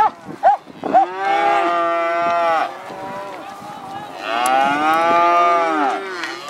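Calves bawling while being driven. Three short calls come first, then two long, drawn-out moos, each lasting about two seconds.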